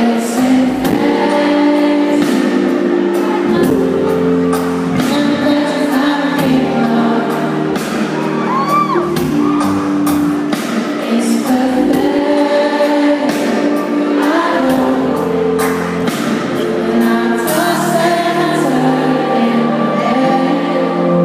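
A live band plays a song, with a lead vocal over long sustained keyboard chords and a regular drum beat, recorded from inside the audience.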